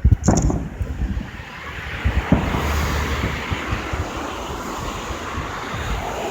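Fireworks: a few deep booms of shells bursting in the first second and one more about two seconds in, followed by a long steady hiss that lasts until a new boom near the end.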